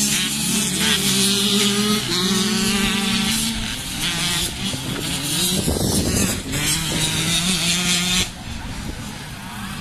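Enduro motorcycle engines revving, the engine pitch stepping and gliding up and down, until the sound drops off sharply about eight seconds in.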